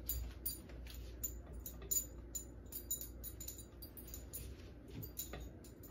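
Faint, scattered clicks and light taps of a utensil against a glass punch bowl as whipped topping is spread inside it, over a low steady hum.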